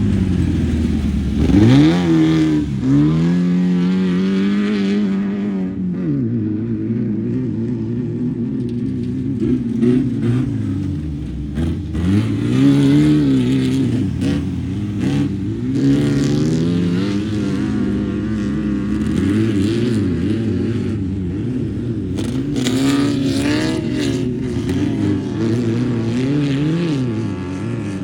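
An off-road vehicle's engine running under changing throttle, its pitch climbing and dropping again and again as it is driven, with bursts of rattling noise in the later part.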